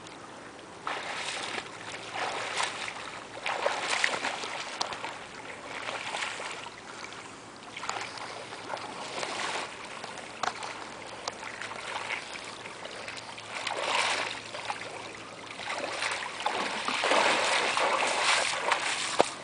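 Water splashing from a swimmer's strokes in open water, coming in uneven swells every second or two. Near the end it grows louder and more continuous as the swimmer wades out through the shallows.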